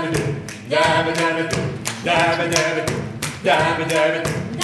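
A voice singing three held notes of about a second each, with short pauses between, over sharp taps.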